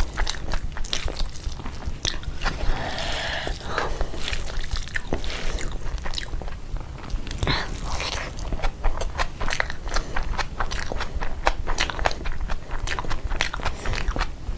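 Close-miked eating of biryani and meat curry: a steady run of chewing, with many short wet clicks and crunches from the mouth. There is a brief fuller smacking patch about three seconds in.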